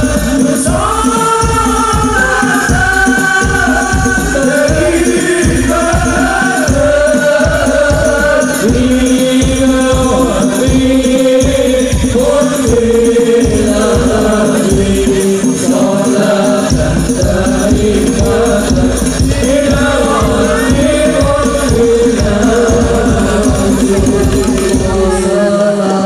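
Hadroh ensemble performing sholawat: men's voices singing a melody in unison over a fast, steady beat of hand-struck frame drums (rebana) with jingling tambourine, played loud through a PA.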